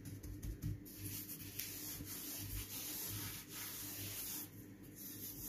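Hand rubbing and pressing a ball of semolina dough in a clay dish: a soft, steady gritty rubbing of the grains against the dough and dish.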